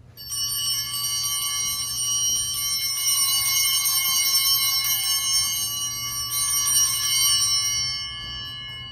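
Altar bells rung continuously for about eight seconds, a cluster of high ringing tones that starts suddenly and fades near the end. They mark the elevation of the consecrated bread after the words of institution.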